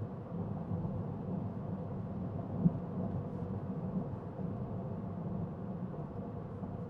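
Steady low hum of road and engine noise inside a 2019 Toyota Corolla XSE hatchback with a CVT, cruising at highway speed. One short thump about two and a half seconds in.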